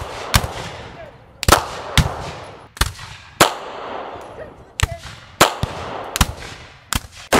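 A rapid, irregular string of about a dozen gunshots, each a sharp crack followed by a short echoing tail.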